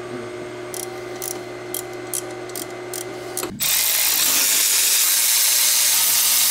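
Cordless ratchet working an engine-mount bolt: a few short sharp clicks, then from about halfway through the motor runs continuously with a loud, steady buzz.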